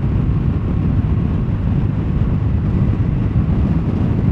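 BMW R1200GS boxer-twin motorcycle under way at road speed: a steady low rumble of engine and wind rush on the microphone.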